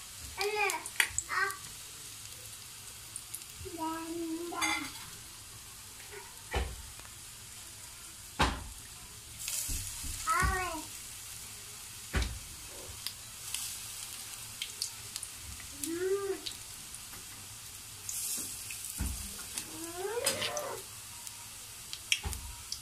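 Zucchini fritters sizzling as they shallow-fry in a finger's depth of oil, the hiss swelling now and then. Over it come several short, high-pitched calls that rise and fall, and a few sharp knocks.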